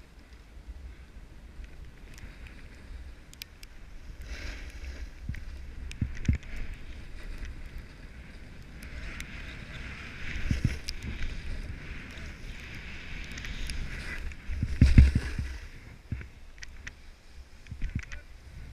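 Skis hissing and scraping over snow through a run of turns, with wind rumbling on the microphone. A few sudden thumps as the skis hit bumps, the loudest about 15 seconds in.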